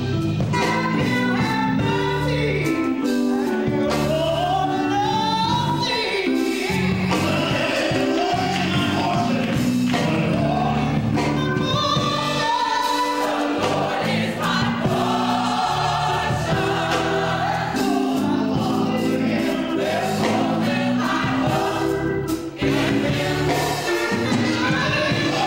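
Gospel choir singing with a lead singer over instrumental accompaniment.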